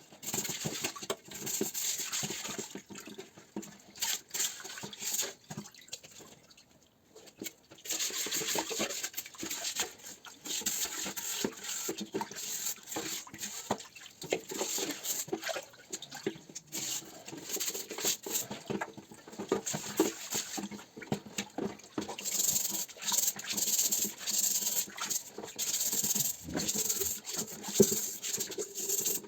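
A wet, rusty steel helmet shell being scrubbed with a brush in rapid, irregular scratchy strokes, with a pause of about two seconds near the start.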